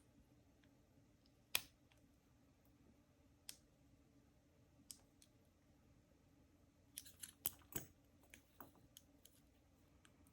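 Small sharp metallic clicks of a lock pick and tensioner working inside an Ace 50mm laminated padlock: one sharp click about a second and a half in, two fainter ones after, then a quick cluster of clicks near the end.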